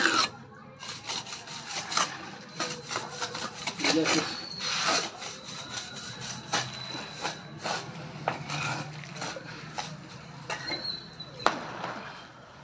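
A steel trowel scraping and raking grooves through a wet cement mortar bed laid for setting a granite slab. It makes a string of short, irregular scrapes, with one sharper knock near the end.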